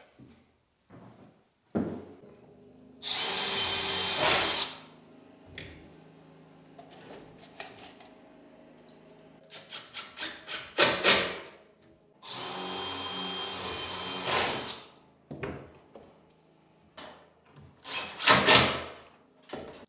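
Cordless drill and driver pre-drilling and screwing down through the top panel of a melamine wardrobe drawer unit. There are two long, steady runs of the motor, each a couple of seconds, and shorter bursts of quick rattling strokes about halfway through and near the end as screws are driven home.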